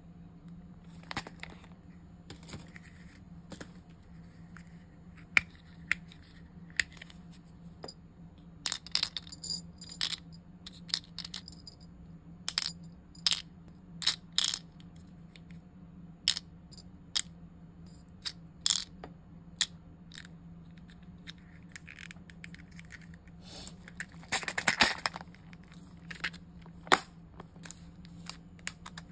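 Small plastic resin beads and charms clicking and ticking one at a time as they are dropped and set into a clear plastic compartment case, with a denser rustling cluster of clicks near the end.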